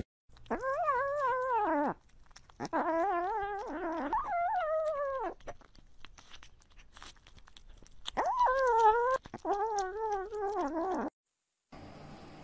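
Orange kitten eating wet food from a metal bowl beside a close microphone, making a high, wavering whining hum in three long stretches as it eats, with small wet clicks of chewing and licking in between. It stops abruptly near the end.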